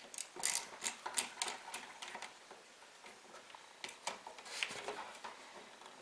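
Light, irregular clicking and scraping of a screwdriver turning a brass terminal screw on a GFCI outlet to clamp a neutral wire. The clicks come quickly for the first couple of seconds, then more sparsely.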